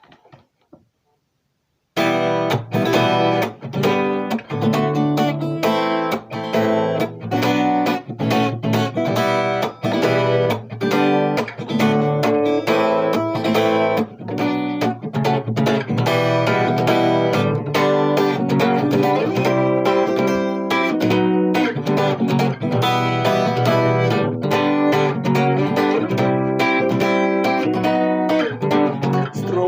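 Guitar strummed in a steady rhythm, chords played as a song's instrumental intro before the vocals come in. The strumming starts about two seconds in, after near silence.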